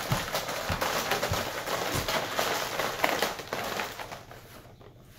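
Dozens of plastic markers clattering and rattling as a hand stirs them around in a clear plastic bin, mixing them up. The clatter is continuous and dies away about four seconds in.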